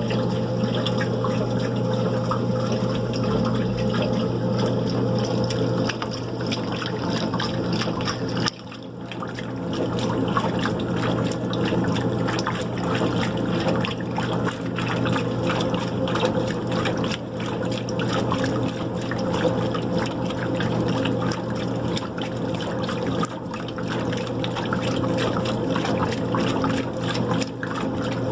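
White Westinghouse washing machine with water rushing through it over a steady low hum. It starts abruptly and dips briefly about a third of the way in.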